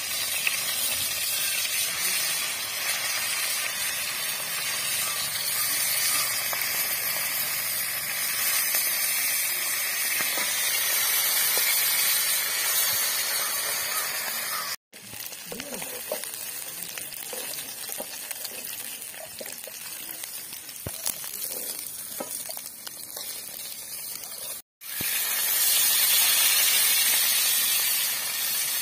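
Fish pieces sizzling as they fry in hot oil in an iron kadai, with a metal spatula now and then scraping and tapping the pan. The frying drops to a quieter sizzle with scattered clicks through the middle and is cut by two brief gaps.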